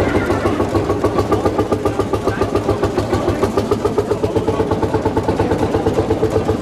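Old tractor engine running steadily with a rapid, even beat.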